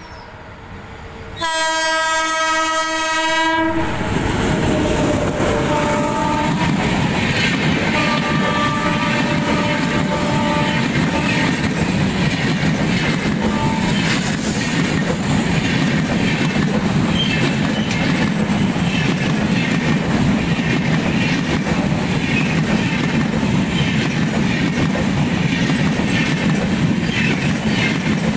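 A WAP-7 electric locomotive's horn sounds one long blast, followed by two shorter, lower horn notes. Then the express's coaches rush past with a steady rumble and clickety-clack of wheels over the rail joints.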